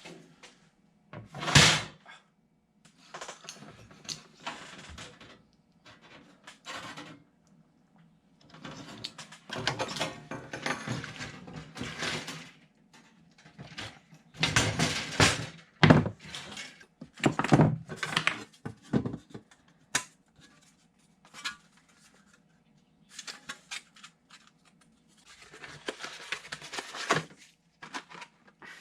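Irregular knocks, clatters and scraping from hands-on work with tools and parts, in short bursts with pauses between. The sharpest knock comes about a second and a half in.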